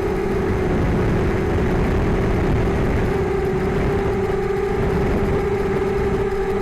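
RCX Mini Hex 330 hexacopter's six small brushless motors (1804, 2400Kv) spinning 5030 two-blade props, a steady buzzing hum in flight. A rough low rumble runs underneath.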